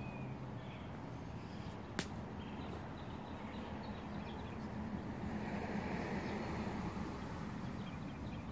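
Steady low background noise, with a single sharp click about two seconds in.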